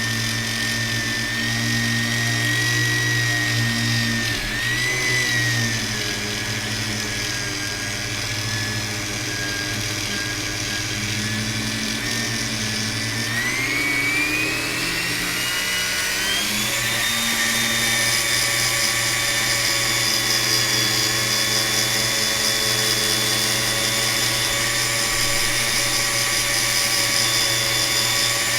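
Small electric rotary polishing tool running at high speed, buffing a plastic AirPods Pro case with polishing compound. Its whine dips briefly about five seconds in, then rises to a higher, steady pitch a few seconds past the middle as the speed is turned up.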